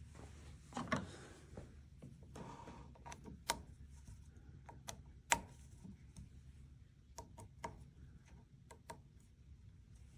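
Faint, irregular clicks and light knocks of metal scope-ring parts and a lapping tool being worked and handled, a few seconds apart and sometimes in quick clusters.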